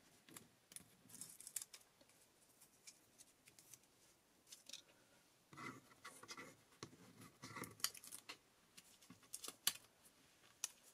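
Faint craft handling: small pieces of tape pulled off and pressed down to fix thin metal cutting dies onto card, with scattered light clicks and rustles of paper and die.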